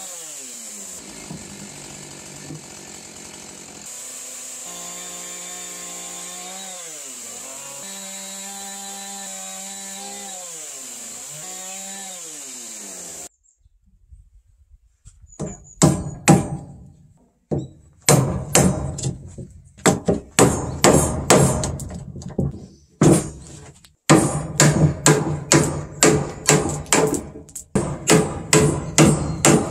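Chainsaw cutting into a timber beam, its engine note dipping and rising under load, for about the first thirteen seconds. After a short pause, a wooden mallet strikes a chisel into the beam's end in steady runs of blows, about two a second.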